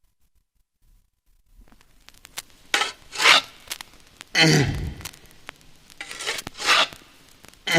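Silent gap between tracks on a vinyl record. About a second and a half in, rasping, scraping percussion strokes come in, one every second or two and growing louder, opening the next reggae track.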